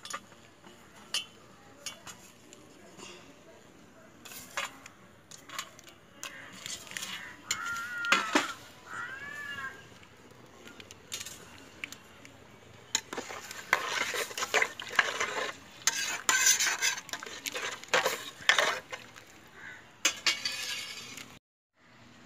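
Metal spoon stirring and scraping in a cooking pot, with irregular clinks and knocks of utensils against the pan, busiest in the second half.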